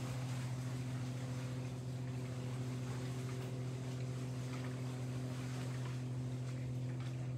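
Steady low motor hum with a few overtones, unchanging throughout, with faint scattered ticks above it.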